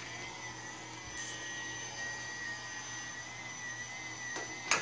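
Battery-powered toy upright vacuum cleaner running: a steady high-pitched whine with a low hum beneath, and two short clicks near the end.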